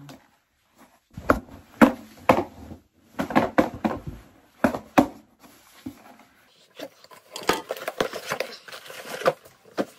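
Cardboard shipping box being handled and shaken, with several sharp knocks of the box and what is inside it. Near the end comes a stretch of crackling as the box is pulled open.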